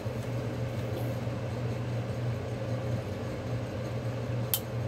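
A steady low mechanical hum with one sharp click near the end.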